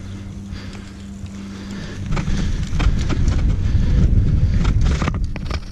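Wind buffeting the microphone of a bike-mounted action camera while the bicycle is ridden, a low rumble growing much louder about two seconds in, with a few sharp clicks or rattles near the end.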